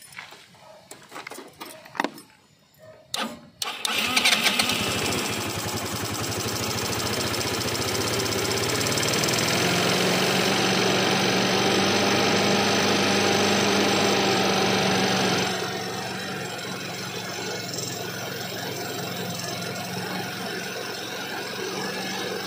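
Kymco Super 8 scooter engine, with a few clicks, then catching and starting about three and a half seconds in. It runs steadily, faster and louder for several seconds, then settles to a lower, steady idle about two-thirds of the way through.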